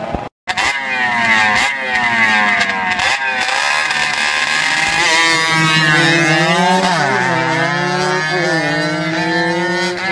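Small-capacity motorcycles in a drag race, their engines revving hard at once, each climbing in pitch and dropping back at every gear change as they accelerate away. The sound cuts out for a split second near the start.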